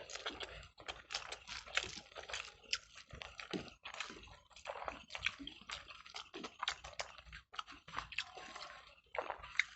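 Two people eating rice with egg curry and fried vegetables: a steady run of irregular wet smacks, clicks and chewing sounds.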